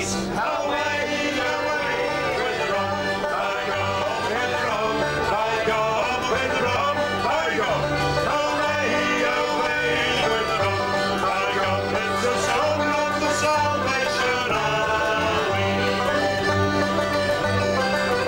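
Folk band playing an instrumental tune on banjo, acoustic guitar and button accordion.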